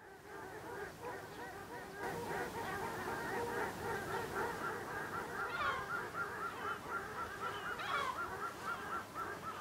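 A large flock of waterbirds calling together, a dense chatter of many overlapping goose-like calls, fading in over the first couple of seconds.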